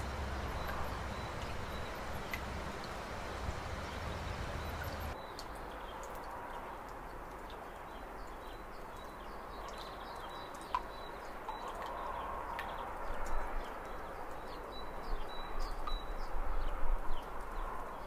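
Flowing water over rocks, a steady rushing hiss, that changes abruptly about five seconds in as the low rumble drops away. After the change, scattered small bird chirps and clicks sit over the water noise, with irregular louder splashy patches near the end.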